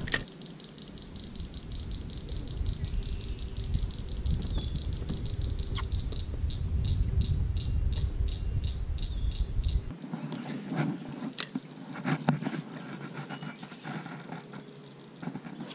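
Steady low rumble of wind on the microphone with a regular high ticking, about three a second, for several seconds. About ten seconds in the rumble stops abruptly, and a few sharp clicks and knocks follow as the spinning reel and rod are handled in the boat.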